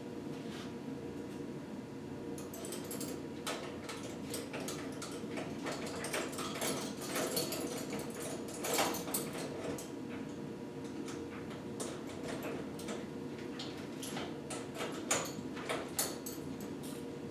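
Irregular metallic clicks and clinks of hand tools working on bolts in the engine's bottom end, over a steady low hum.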